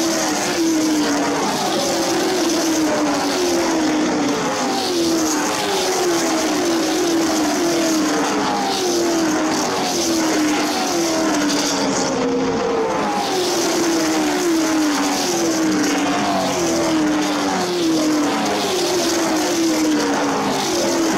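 Late Model stock cars' V8 engines racing past in a pack at full speed. The note of each car falls in pitch as it goes by, one car after another about every second.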